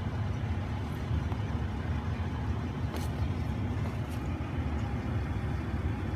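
Pickup truck engine idling steadily, a low rumble heard from inside the cab, with a couple of faint clicks.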